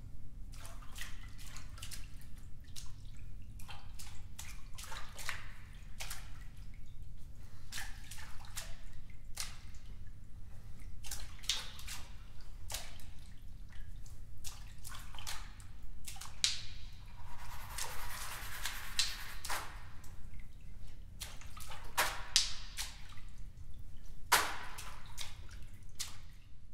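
Water played as a percussion instrument: scattered, irregular drips and splashes, with a longer rushing swell about two-thirds of the way through.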